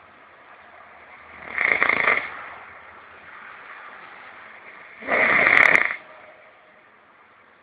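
A person snoring: two loud snores about three and a half seconds apart, each lasting under a second.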